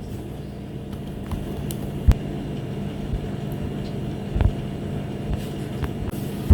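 A steady low hum with a few soft knocks of items being set down and handled, about two seconds in and again past the middle.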